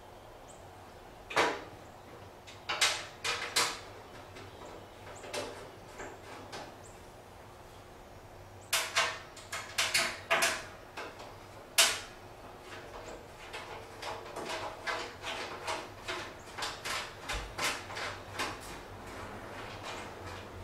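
Sheet-metal clunks, scrapes and rattles from an electric garage heater's housing as it is handled and shifted on its ceiling bracket. The knocks come irregularly, loudest in a cluster about nine to twelve seconds in, followed by a run of lighter, quicker clicks.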